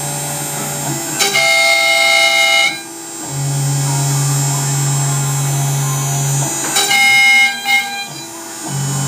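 Background music: held instrumental chords that change every second or two.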